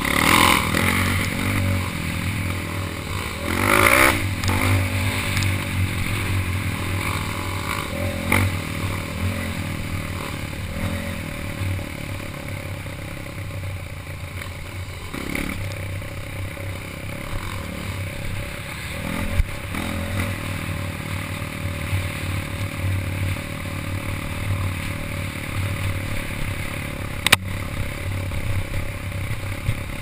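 Dirt bike engine running at steady low revs while riding over a rough, rutted dirt trail, with clattering and scraping from the bike over the ground and a single sharp knock near the end.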